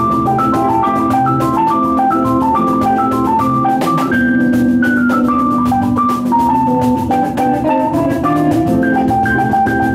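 Live band playing in a rehearsal room: drum kit keeping a steady beat under keyboard and electric guitar, with a melody of held notes stepping up and down.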